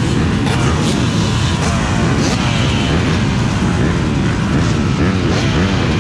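Several off-road motorcycle engines running together, revving up and falling back over and over in overlapping glides.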